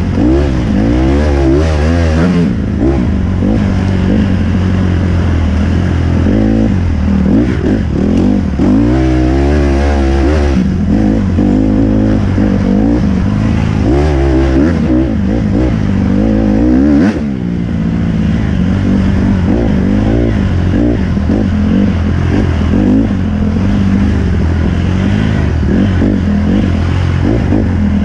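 Dirt bike engine heard from on the bike, revving up and down again and again as the rider works the throttle along a rough trail, with a brief drop in revs about two-thirds of the way through. Rattling and clattering from the bike over rough ground runs underneath.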